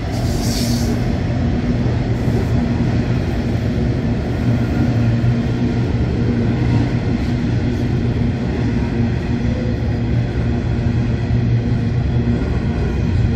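Empty coal hopper wagons of a long freight train rolling past, a continuous low rumble with a steady hum underneath.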